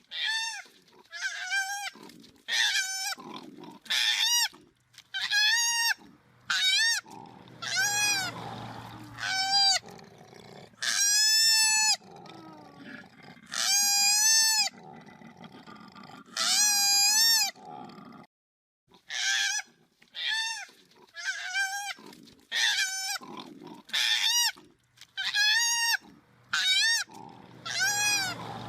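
Koala crying: a long series of short, high-pitched, wavering squeals, about one a second, with three longer drawn-out cries near the middle.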